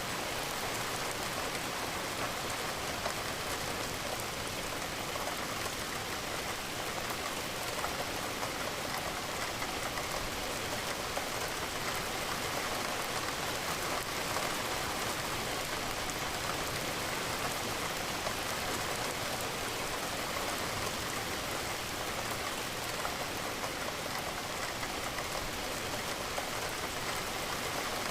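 Steady rain falling, an even hiss of raindrops with no breaks or distinct events.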